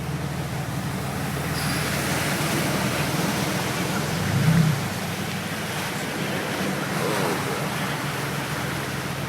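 A car driving through deep floodwater: the engine hums steadily under a constant rush and splash of water, with a brief louder surge about four and a half seconds in.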